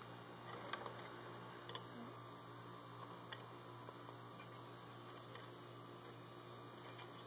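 A few faint, light clicks of metal motorcycle clutch parts being handled at the open clutch basket, with a low steady hum underneath.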